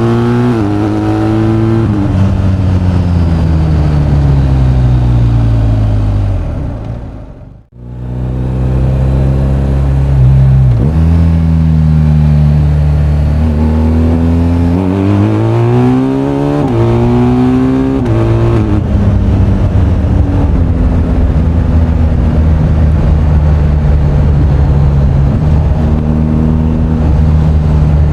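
BMW R1250GS boxer-twin engine heard from the rider's seat, with wind rush. The revs fall at first, climb twice and step down at gear changes around the middle, then settle into steady cruising. The sound fades out briefly about seven seconds in and returns.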